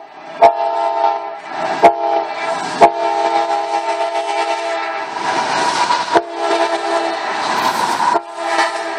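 An approaching CSX freight locomotive sounding its multi-chime air horn in a long chord that cuts off around six seconds and sounds again near the end. The rumble of the train builds from about five seconds. Four sharp clicks stand out, three in the first three seconds and one around six seconds.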